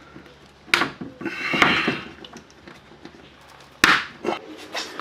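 Plastic push-in retaining clips being knocked into a car's front bumper and lip spoiler with a hard object, a few sharp knocks with the loudest near the end. The clips are so full of grit that they are not snapping home.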